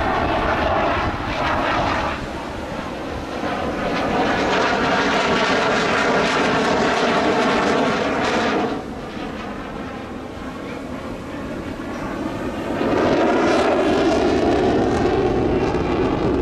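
F/A-18 Hornet jet making a low pass with gear and hook down: a continuous jet roar with a wavering, phasing sweep. The roar drops away about nine seconds in, then surges loud again about thirteen seconds in as the jet pulls up on afterburner into a vertical climb.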